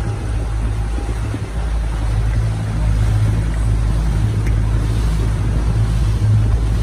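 Small boat's motor running steadily.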